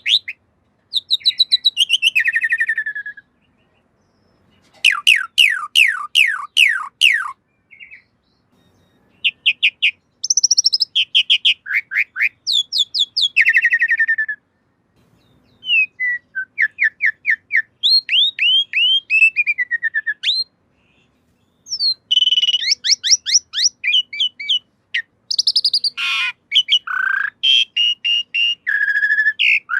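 Pied starling (jalak suren) singing: bouts of rapid, repeated whistled notes, many sliding downward, broken by short pauses. Near the end comes a single harsher, noisier call.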